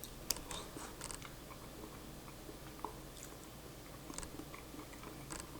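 A person chewing a bite of boiled balut egg: faint, wet mouth sounds with small scattered clicks.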